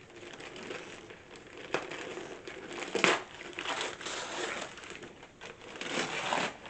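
Wrapping paper being torn and crumpled as a present is unwrapped by hand, irregular rustling and crinkling with a few sharper crunches.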